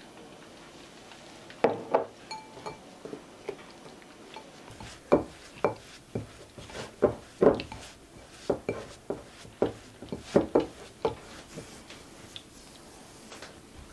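Wooden spatula knocking and scraping against a glass mixing bowl as a crumbly dough is mixed: a run of irregular sharp taps, some ringing briefly like glass, starting about two seconds in and stopping a few seconds before the end.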